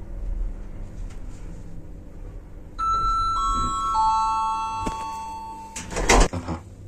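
Lift Service elevator car running down with a low hum, then its arrival chime: three descending notes about three seconds in, each ringing on. About six seconds in, a loud clatter as the doors start to open at the floor.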